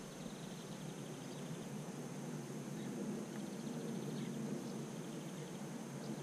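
Faint outdoor ambience: a steady high insect-like hum with scattered soft chirps. There is no motor sound, because the quadcopter's motors are not spinning.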